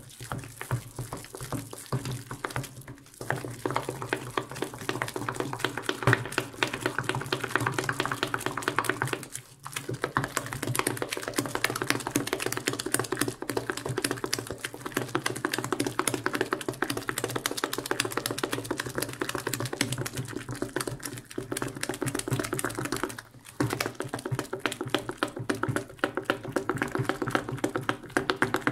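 Wooden spoon beating a thick, wet sweet potato filling in a glass bowl: fast, continuous clicking and knocking of the spoon against the glass. The stirring pauses briefly three times.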